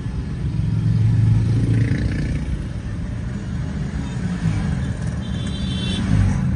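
Many motorcycles and scooters riding past in a long convoy, their engines running with a steady low drone that swells about a second in. A brief high-pitched tone sounds about five seconds in.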